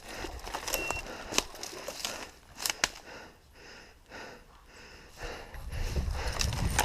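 Footsteps crunching through dry leaves and brush, with sharp snaps of twigs breaking underfoot, and a low rumble near the end.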